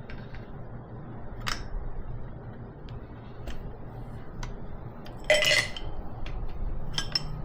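Metal wrench clinking against the injector hard-line fittings of a Kubota V2203 diesel as they are loosened: scattered light clicks, a louder clank about five seconds in, and a few more clinks near the end.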